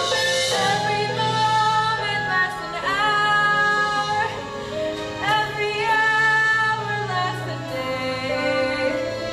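Musical number from a stage musical: a woman singing long held notes, sliding up into some of them, over an accompaniment with a sustained bass line.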